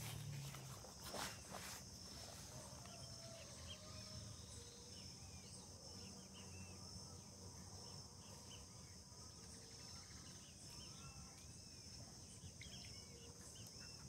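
Faint, steady high-pitched insect chorus, like crickets, with many short bird chirps scattered through it. Two soft clicks sound about a second in.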